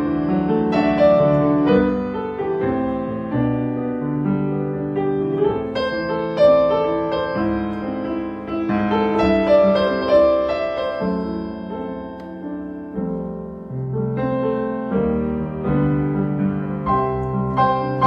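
Background piano music: a slow run of sustained chords and notes.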